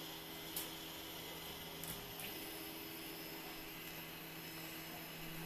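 Gmax 1.5XT+ dual-extruder 3D printer running: a steady low hum of its motors and fans, whose pitch shifts about two seconds in, with a few short clicks.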